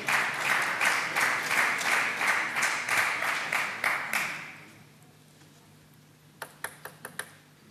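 Audience applauding with rhythmic clapping, about three to four claps a second, that fades out after about four seconds. Near the end a celluloid table tennis ball bounces five or six times in quick succession on the table.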